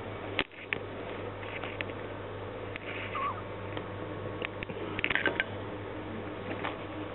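Pet rats scrabbling in a wire playpen: scattered clicks and light rattles of claws on the metal bars and tile floor, with a sharp click just after the start and a busier flurry about five seconds in. A short squeak comes about three seconds in, over a steady low hum.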